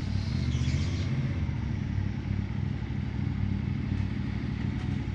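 Motorcycle engine running with a steady low rumble and a fast, even pulsing beat.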